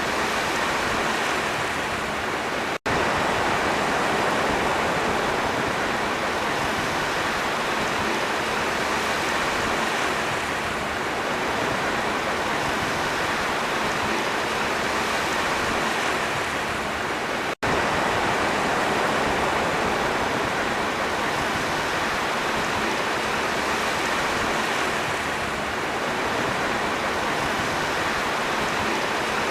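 Sea waves: a steady, continuous wash of surf. It cuts out for an instant twice, about three seconds in and again just past the middle.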